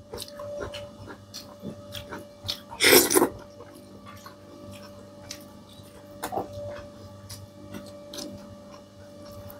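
A person eating: chewing with scattered mouth clicks and smacks, and one louder mouth noise about three seconds in.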